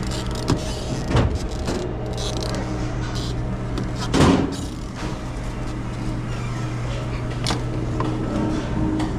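Steady low hum of commercial refrigeration equipment, with scattered knocks and clicks of handling. A louder scrape or clatter comes about four seconds in.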